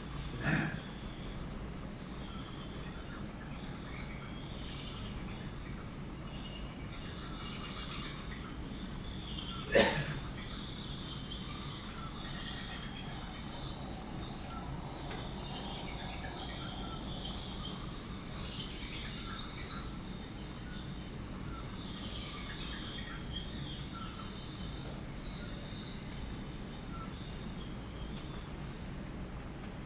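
Tropical forest ambience played back over a lecture room's speakers: insects hold a steady, high-pitched drone, with scattered higher chirps over it. A single sharp crack stands out about ten seconds in.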